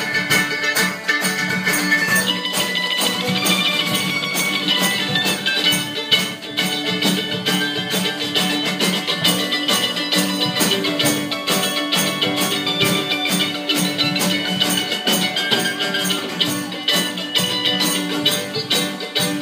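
Acoustic folk band playing an instrumental passage live on banjo, acoustic guitar, mandolin and drum kit, strumming and picking to a steady fast beat of about five strokes a second.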